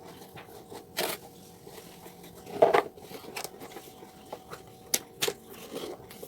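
Packaging being handled: irregular crinkling, rustling and sharp taps, loudest about two and a half seconds in.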